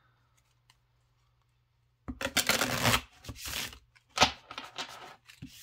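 A deck of thick-cardstock tarot cards being shuffled. After about two seconds of near silence comes a rush of cards sliding together, then a second one, a sharp snap about two seconds later, and a few shorter shuffling rustles.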